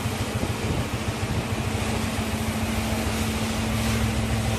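An engine idling steadily, an even hum with a low pulsing beat.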